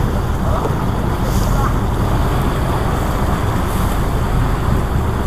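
Small fishing boat's engine running steadily under way, with wind and rushing water around the hull.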